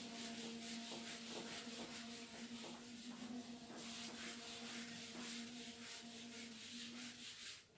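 Handheld whiteboard eraser rubbing across a whiteboard in repeated wiping strokes, clearing marker writing; the strokes stop shortly before the end.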